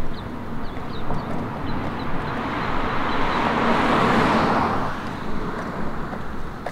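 A car driving past close by: engine and tyre noise rising to a peak about four seconds in, then fading away.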